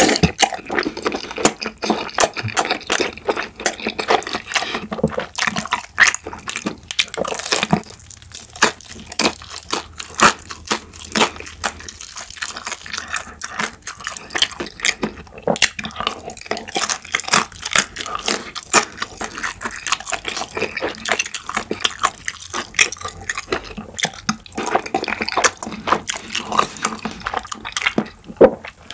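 Close-up wet chewing and mouth sounds of a person eating tteokbokki, chewy rice cakes in thick red sauce: many short sticky smacks and clicks in quick succession.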